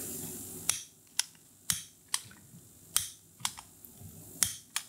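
Piezo igniter of a long-nosed utility lighter clicking repeatedly, about ten sharp clicks at uneven intervals, while it is struck to light a tealight candle. A faint hiss stops just before the clicking starts.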